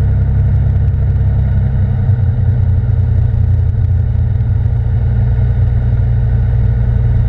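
Cirrus SR22's six-cylinder piston engine and propeller running steadily at low power, heard inside the cabin as a loud, low drone.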